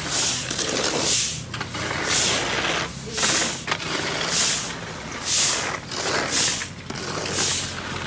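Sweeping scattered unhulled rice grain across a tiled yard: a scraping swish about once a second, stroke after stroke.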